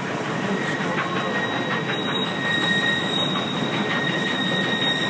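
Steam-hauled train rolling past on the curve, its wheels squealing in a steady high pitch over the rumble of the cars.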